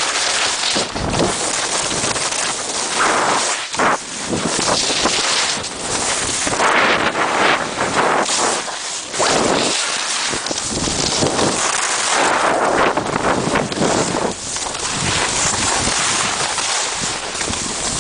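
Skis sliding and scraping over packed snow on a downhill run, mixed with wind rushing over the microphone; the noise swells and fades again and again.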